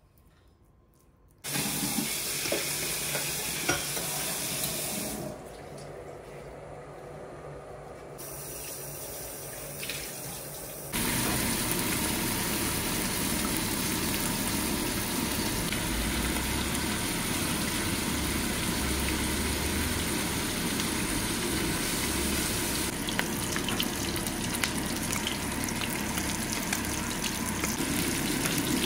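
Tofu blocks frying in hot oil in a wok: a steady, loud sizzle from about eleven seconds in. It is preceded by shorter, uneven stretches of hissing kitchen noise.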